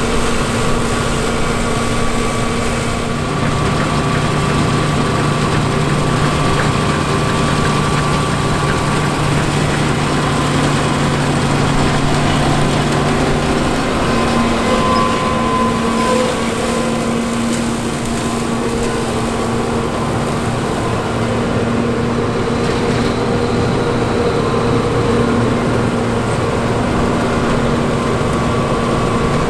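John Deere 9450 combine harvesting wheat: its 6.8-litre PowerTech diesel and threshing machinery make a steady drone. A few of its engine tones shift in pitch along the way.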